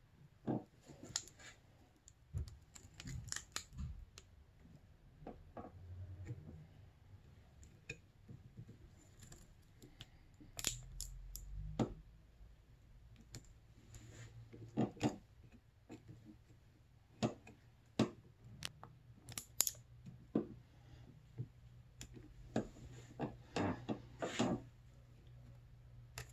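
Electrical tape being stretched and wrapped around a wire by hand: scattered short crackles and clicks as the tape peels off the roll and is pressed down, with light rustling of handling.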